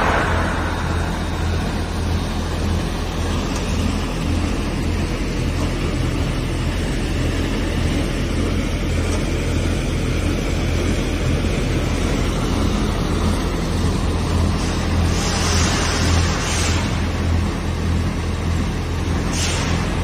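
ALLES ALCK6150 CNC lathe running unloaded on a test run, its spindle and empty chuck turning with a steady mechanical hum. Short hissing bursts come twice near the end.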